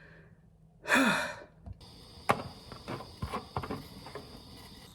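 A person's short breathy sigh about a second in, followed by a few light clicks and knocks over a faint steady high whine.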